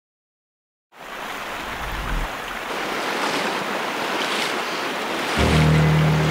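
Shallow river water rushing and splashing over stones, starting about a second in, with a hiker's boots wading through it. Near the end, music with a held low note comes in over the water.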